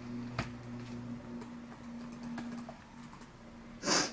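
Scattered light clicks and taps of small objects being handled, over a steady low hum. Near the end comes a short, loud rush of noise.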